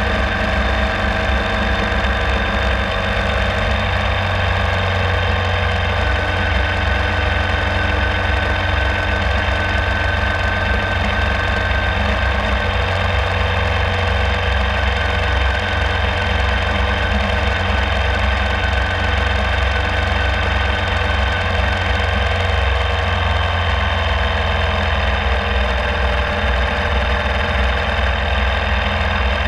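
Ural Classic sidecar motorcycle's air-cooled flat-twin engine running steadily while the machine is ridden along a street, its pitch shifting slightly about two thirds of the way in.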